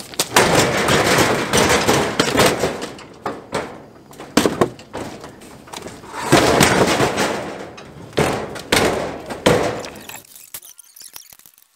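Metal electric range being slid and walked across a wooden trailer deck: scraping and clunking of the sheet-metal cabinet in two long spells, with sharp knocks between.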